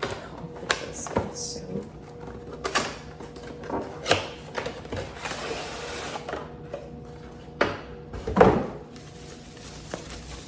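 Handling noise of a reverse osmosis filter system's parts and packaging being unboxed: scattered clicks, knocks and rustles, with a longer rustling stretch a little past the middle and a louder knock near the end.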